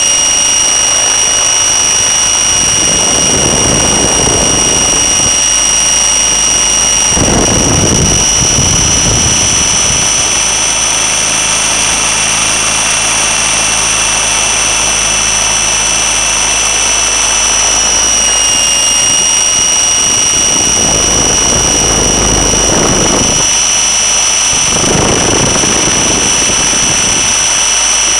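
Steady high-pitched whine of the Raptor E550 electric helicopter's motor and drive, heard from the onboard camera, with four rushing gusts of air noise over it.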